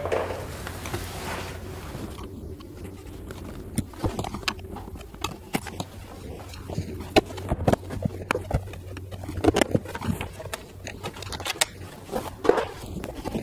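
Front footwell carpet of a Mercedes C-Class W206 being pulled up and handled, rustling and scraping with many irregular short clicks and knocks.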